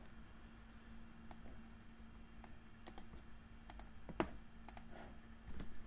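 Scattered single clicks of a computer mouse and keyboard, spaced irregularly about half a second to a second apart, over a faint steady hum.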